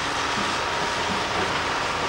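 Diesel engines of a tracked excavator and a Leyland tipper lorry running steadily, heard as a continuous even noise with no distinct knocks or crashes.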